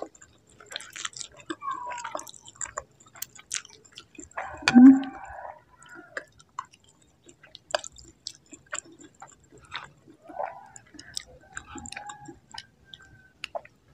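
Close-miked chewing of a mouthful of spicy instant noodles, with many small wet mouth clicks and smacks. About five seconds in, a short louder voiced sound comes from the eater.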